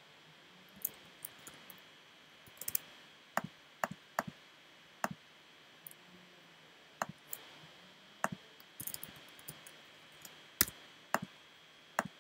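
Computer keyboard and mouse clicking: irregular, sharp single clicks and short runs of key presses as a name is typed into a form and buttons are clicked.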